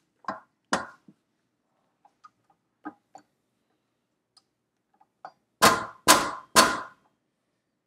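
Spatula scraping and clicking against the steel bowl of a stand mixer, then knocked three times on the bowl about half a second apart, each knock ringing.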